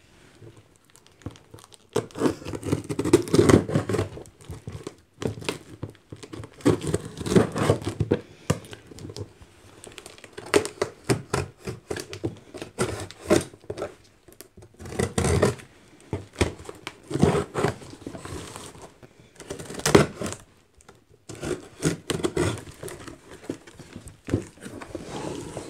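Packing tape being cut with scissors and torn off a cardboard shipping box while the flaps are pulled open: irregular tearing, scraping and crinkling, with a couple of sharper knocks partway through.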